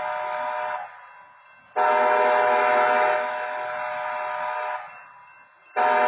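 Railroad crossing wayside horn sounding a chord of steady tones in a regular series of long blasts, each about three seconds with a gap of about a second between: one blast ends under a second in, a full one follows, and the next starts near the end.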